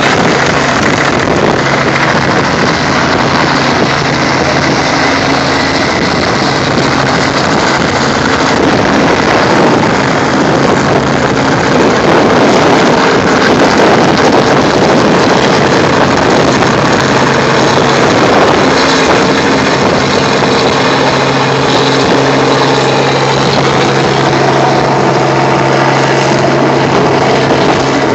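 Helicopter running: loud, steady engine and rotor noise with a constant low hum.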